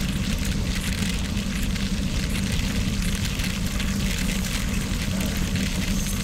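Steady wind rush on a bike-mounted action camera's microphone at about 24 mph, with the fine crackle of bicycle tyres rolling over gravel.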